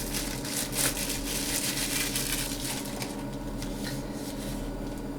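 Plastic shrink-wrap crinkling and crackling as it is peeled off a CD album case: a rapid crackle for about three seconds, then dying down to a few faint rustles.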